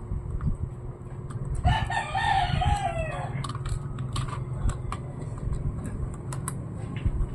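A rooster crows once, a call of about a second and a half starting nearly two seconds in and falling in pitch at the end. Scattered light clicks and taps sound around it.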